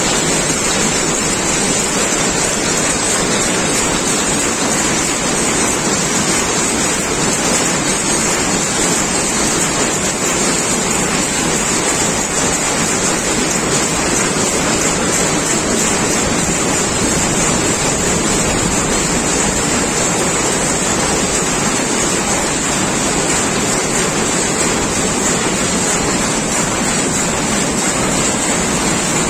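Rapier weaving loom running at speed while weaving: a loud, steady mechanical din without pauses.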